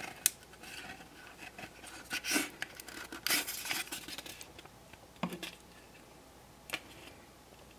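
Faint scattered clicks and short scrapes of small plastic parts being handled: fingers pressing a clear plastic light lens into the cab end of a model train's plastic body shell, where it will not seat because of the extra paint.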